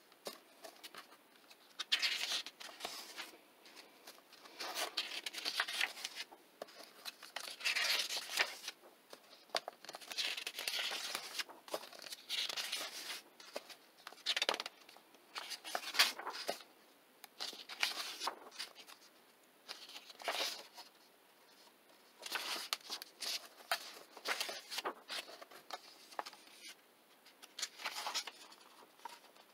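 Paper pages of a paperback coloring book being turned and pressed flat by hand: repeated rustles and soft flaps of paper every two to three seconds.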